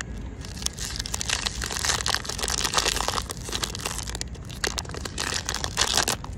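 A foil-lined plastic wrapper crinkling and tearing as it is pulled open by hand, in a run of crackly rustles that are loudest in the middle and again near the end.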